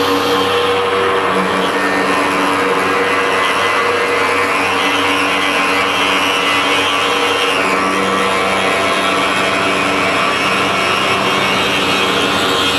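CNC stone-cutting router running steadily, its spindle and cutter grinding through stone with a continuous whine of several steady tones over a dense grinding noise; the upper hiss eases slightly about halfway through.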